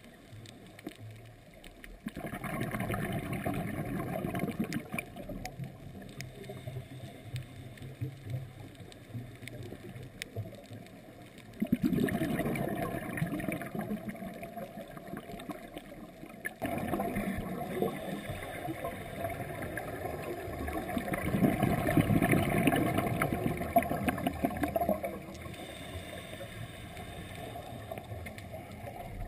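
A scuba diver breathing through a regulator, heard through an underwater camera housing: quiet stretches between long rushes of exhaled bubbles, each lasting a few seconds.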